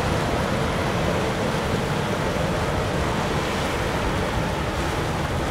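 Metal Shark 50 Defiant fire boat running at speed: a steady rush of engine and churning wake water, easing slightly as the boat pulls away.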